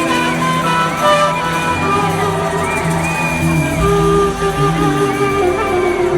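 Live band playing an instrumental passage: sustained melody notes that bend in pitch, over a steady bass line.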